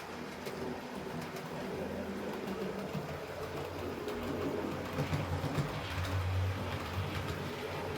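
HO scale model train running along the track: a low motor and wheel hum that grows louder about halfway through as the train comes closer, with faint clicking from the rails.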